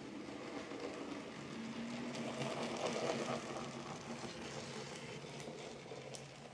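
N gauge model locomotive running along the track: its small electric motor hums steadily over the rumble of its wheels on the rails. The sound swells as it passes closest about three seconds in, then fades, with a few light clicks near the end.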